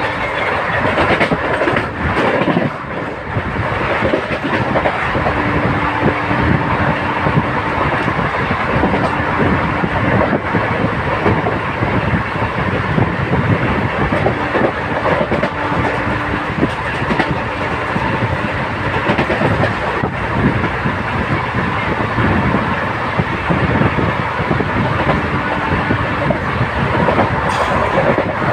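Passenger train running at speed, heard from on board: a steady rolling rumble of the coach's wheels on the track with clickety-clack over rail joints. A short low hum comes and goes several times.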